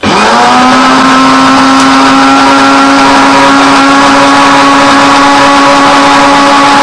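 Electric countertop blender switched on, its motor spinning up in the first moment and then running at a steady pitch, blending a thick egg, onion and garlic marinade with very little liquid.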